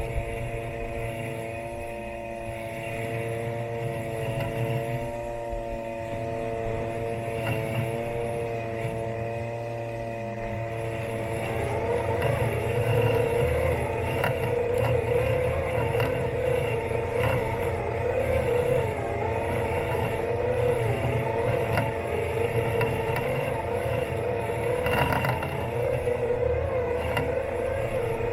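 Robot lawn mower's electric motors humming with a steady whine as it drives and cuts. About halfway through, a wavering, louder whine joins in. There is a short knock near the end.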